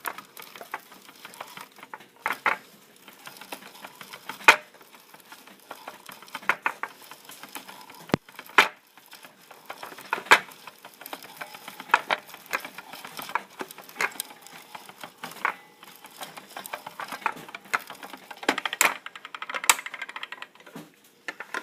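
Hand-operated oat roller flattening whole oats into rolled oats: an uneven run of clicks and crackles, with a few sharper knocks.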